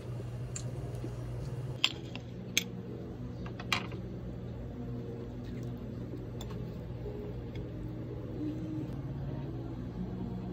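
Steady low hum of room tone, broken by three sharp clicks or knocks around two, two and a half and four seconds in, with a few fainter ticks later.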